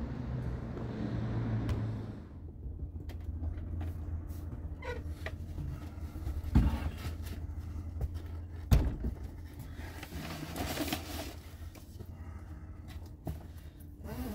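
A steady low rumble from outside lasts about two seconds. Then come handling noises in a small wooden room: rustling, small clicks and knocks as a long wooden board is carried in and moved around. Two sharp thumps, about six and a half and nine seconds in, are the loudest.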